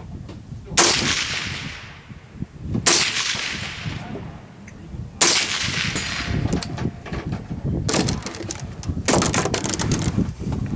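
Three gunshots about two seconds apart, each trailing off in a long echo, then several quicker, quieter sharp cracks near the end.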